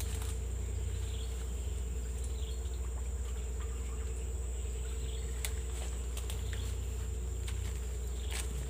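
Steady high-pitched drone of forest insects over a low steady hum, with a few faint clicks.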